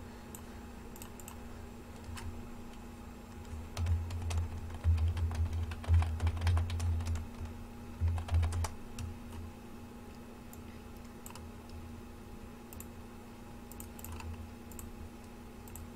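Typing on a computer keyboard: scattered key clicks, with a busier run of keystrokes and dull low knocks from about four to nine seconds in, over a faint steady hum.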